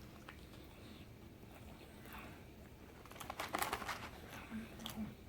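Faint crinkling and small clicks from a fast-food chicken sandwich and its paper wrapper being handled, starting about three seconds in after a near-quiet stretch.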